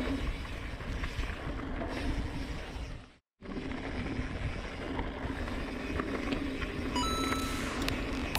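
Riding noise from a mountain bike on the trail: wind on the microphone and tyres rolling, a steady rumbling hiss. It drops out completely for a moment about three seconds in, and near the end a few short steady tones come in.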